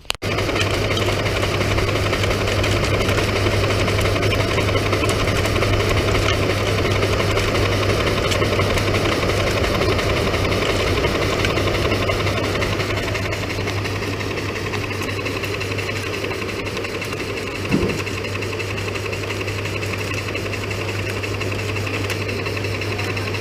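Engine running steadily under a constant load, with a strong low hum and a single knock near the end.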